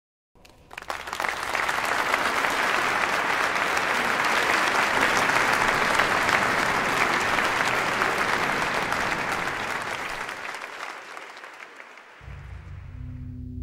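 Concert audience applauding: the clapping starts about half a second in, swells quickly, holds steady and then fades away near the end. As it dies, a low held note from the wind ensemble begins.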